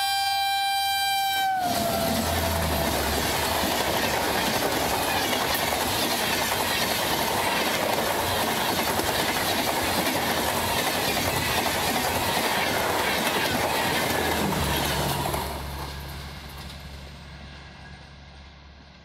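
A WAP-7 electric locomotive's horn sounds as it reaches the camera and cuts off about a second and a half in, its pitch dropping as it passes. The Rajdhani Express's passenger coaches then rush and clatter past at speed, and the sound fades steadily over the last few seconds as the train moves away.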